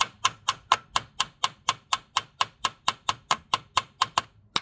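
Small hammer tapping rapidly on the worn handle of a wood heater door to drive it out, sharp metal strikes at about four a second, then a short pause and one last strike near the end. The handle is stuck and does not give way to the light hammer.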